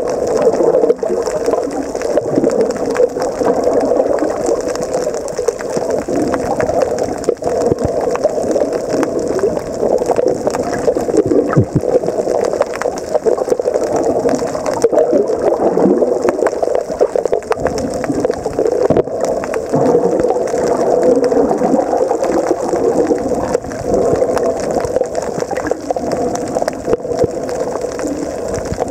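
Underwater ambience picked up by a camera in its waterproof housing: a steady, muffled rush of water with faint scattered crackling clicks.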